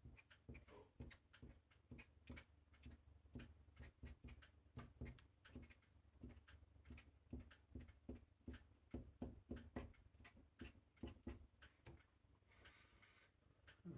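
Faint, irregular taps and scratches of a paint-marker tip on paper as small marks are drawn, a few to the second, with a soft hiss near the end.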